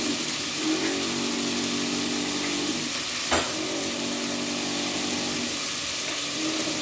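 Beef chunks sizzling steadily in hot oil in a pot, being seared brown to seal the outside. A low hum comes and goes under the sizzle, and there is one sharp click a little over three seconds in.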